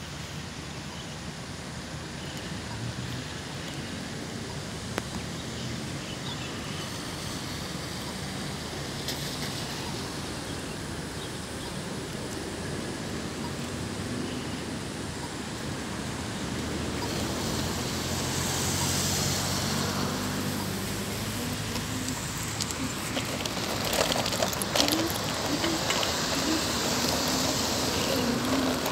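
Road traffic on wet asphalt: a steady hum that grows louder over the second half as vehicles pass, with tyres hissing on the wet road.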